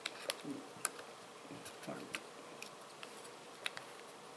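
Faint scattered clicks and taps of plastic and metal as a RAM stick is worked into a motherboard's DIMM slot and its retaining clips are handled, about eight small sharp clicks.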